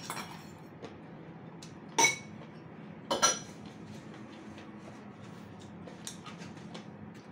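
Eating utensils clinking against a bowl and dishes while food is served: three sharp ringing clinks, at the start, about two seconds in and about three seconds in, with small taps and clicks between.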